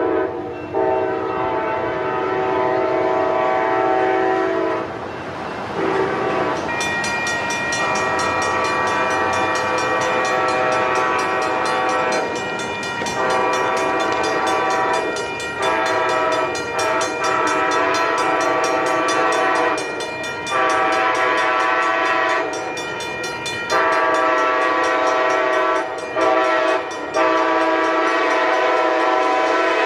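Locomotive air horn of an Altamont Commuter Express train sounding a multi-note chord in a series of long blasts with short breaks. The chord's pitch makeup changes about six seconds in.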